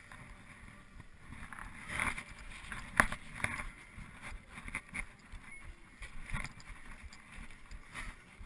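Low, uneven rumble on an action camera's microphone, broken by a few sharp knocks and clicks, the loudest about three seconds in, as the camera is jostled and handled.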